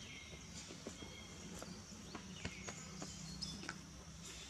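Faint outdoor background: a few short, distant bird chirps and scattered light clicks over a low, steady hum.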